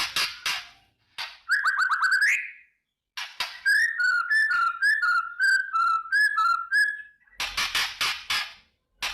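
White-rumped shama (murai batu) giving harsh rattling 'kretekan' calls. In the middle come a quick trill of clicks and a run of short whistled notes, about three a second, and the song ends with another burst of rattles.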